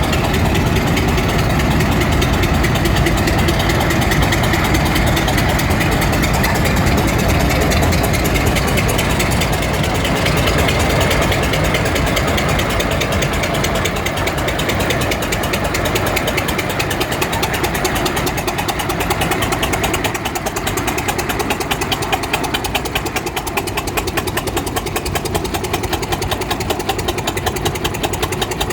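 Tractor engines running steadily, with a rapid pulsing exhaust beat; the sound drops a little in loudness about two-thirds of the way through.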